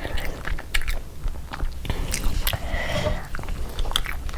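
Close-miked chewing and biting of food, with wet mouth sounds and irregular sharp crunchy clicks.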